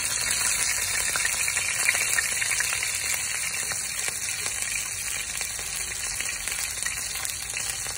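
Chapli kebab patties shallow-frying in hot oil in a pan on heat just turned down. The sound is a steady sizzling hiss with fine crackles, easing a little over the last few seconds.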